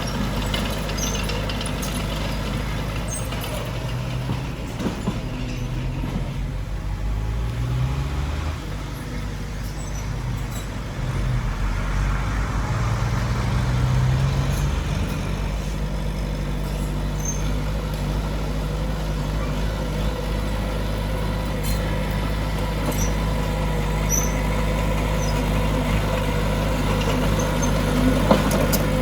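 Heavy earthmoving machinery's diesel engine running steadily, its pitch rising twice in the first half as it revs under load.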